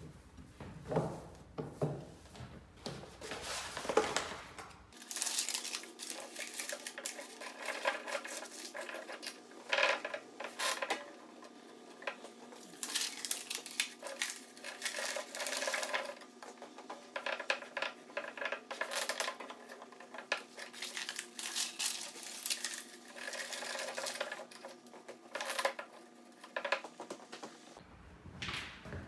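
Wooden tabletop loom being wound by hand: irregular clicking and knocking from the warp beam and its ratchet, with paper rustling as the warp threads wind on with paper between the layers.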